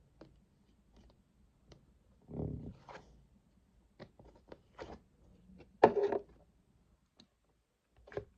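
Close-up ASMR handling sounds: irregular soft taps, crackles and squishes of hands working on a desk surface, the loudest cluster about six seconds in.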